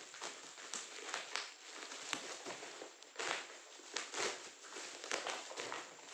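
Black plastic parcel wrapping and packing tape crinkling and crackling as a box cutter slices it open, in irregular rustling bursts.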